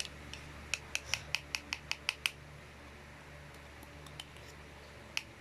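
A quick run of light, sharp clicks or taps, about nine in a second and a half, from small plastic slime-making supplies being handled while colouring is added. A few more clicks come near the end.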